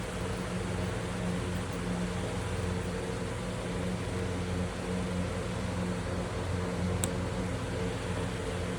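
Steady hum and hiss of a running machine, with a few fixed low pitches, and one short click about seven seconds in.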